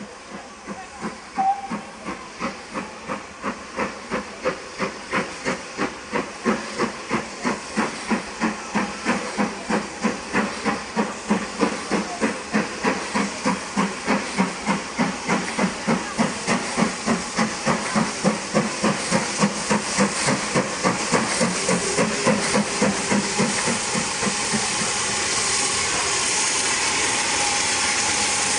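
Steam locomotive working hard, its exhaust chuffing at about two beats a second and growing louder as it comes closer. Near the end the beats blur into one steady, loud hiss.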